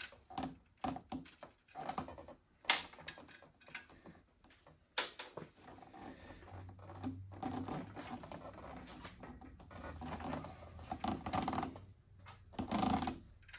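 Scattered clicks, taps and metallic clinks of small bolts and hardware being handled and fitted, with two sharper knocks in the first five seconds.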